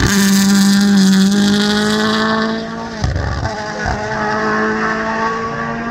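Toyota GR Yaris Rally1 WRC car's turbocharged 1.6-litre four-cylinder engine running hard as the car passes at speed, its note fading away. There is a brief break with a crack in the engine note about three seconds in, then the note carries on at a steady pitch.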